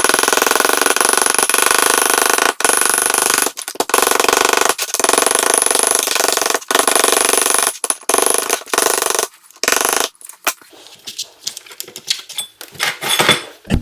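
Ball-pein hammer tapping rapidly on gasket paper laid over an air compressor's cylinder head, cutting the new head gasket out along the edge. The tapping is loud and nearly continuous with short breaks, then about ten seconds in gives way to sparse, quieter taps and clicks.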